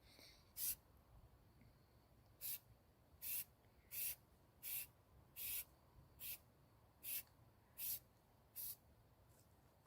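Aerosol spray-paint can hissing in about ten short squirts, roughly one every three-quarters of a second, as a light first coat is sprayed on in quick passes.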